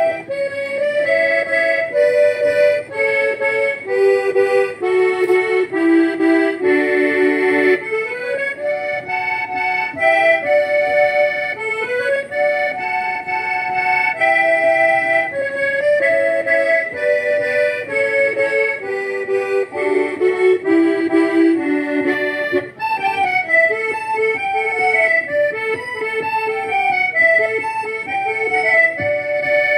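Accordion (gaita) playing a lively traditional gaúcho melody in quick runs of notes that climb and fall, growing busier about two-thirds of the way through.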